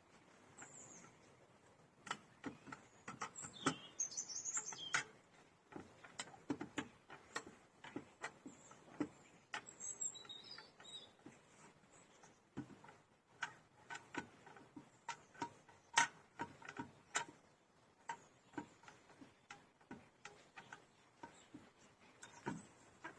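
Irregular light clicks and knocks of the lower unit of a Tohatsu 3.5 hp four-stroke outboard being handled and worked against the motor's housing while the driveshaft is being seated. Birds chirp now and then, faintly.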